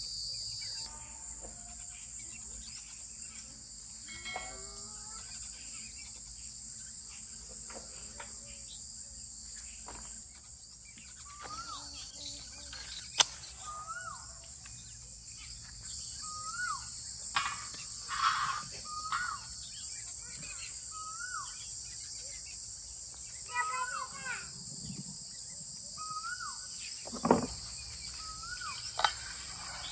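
Steady high-pitched chirring of crickets, with a bird repeating a short rising-and-falling call about once a second from around halfway through. There is a sharp click about thirteen seconds in and a couple of knocks near the end.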